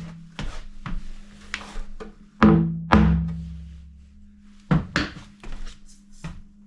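Wooden cabinet parts knocked and thunked together, a string of sharp knocks with the two loudest about half a second apart a little before the middle, each ringing on briefly.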